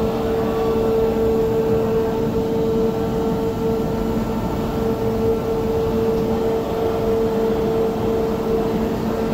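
Ocean Express two-car funicular train pulling into its station, heard as a steady mechanical hum with one constant high-pitched tone over a broad rumble.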